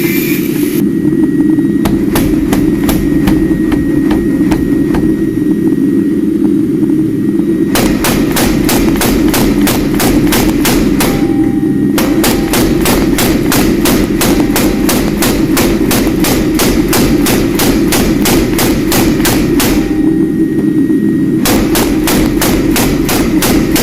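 Hammer blows striking metal in a steady forging rhythm of about three a second, sparse for the first couple of seconds and then continuous, over a steady low roar from the forge.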